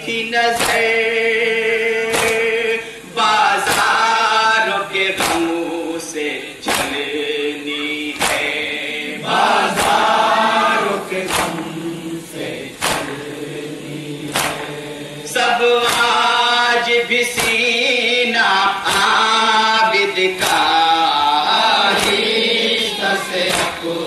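A Shia nauha: a male lead voice sings while a group of men chants in response. Under it runs a steady beat of open hands striking chests (matam), about one strike every three-quarters of a second.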